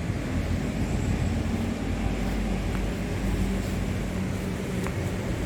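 WDP-4 diesel locomotive's two-stroke EMD 710 engine running under power with a steady low rumble.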